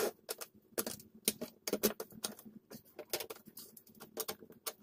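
Quick irregular clicks and taps, about four a second, of a spanner working the mounting nuts of dual potentiometers on an amplifier panel.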